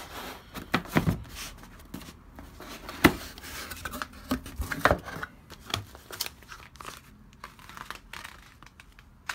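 A cardboard box being opened and its contents handled: cardboard, paper and bubble wrap rustling and crinkling, with irregular knocks, the sharpest about three seconds in.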